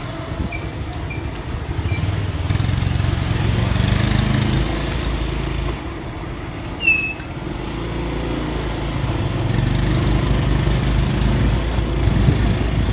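Motorcycle engine running while riding, heard from on the bike, with tyre and water noise from a wet, partly flooded road. The engine grows louder for a couple of seconds early on and again in the second half. A short high chirp comes about seven seconds in.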